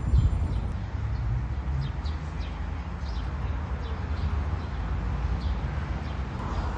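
Small birds chirping, short high falling notes about two a second, over a steady low rumble.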